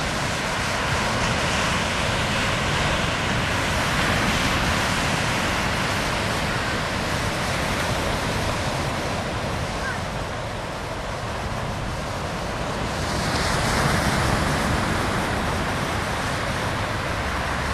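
Small ocean surf breaking and washing up on a sandy beach: a steady rushing wash that swells louder about four seconds in and again after about thirteen seconds as waves come in.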